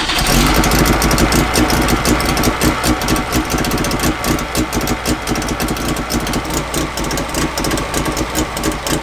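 DKW Auto Union 1000S's three-cylinder two-stroke engine running steadily just after being started, a fast, even stream of exhaust pulses, on a test run to check the newly fitted water hose for leaks.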